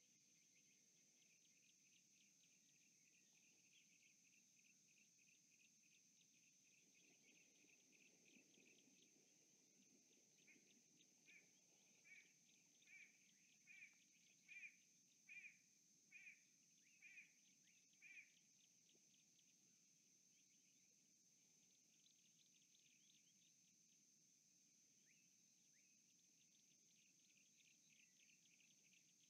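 Faint natural ambience with insects trilling, and a bird calling a series of about ten short, evenly spaced notes, a little under a second apart. The notes start about ten seconds in, swell and then fade over about eight seconds.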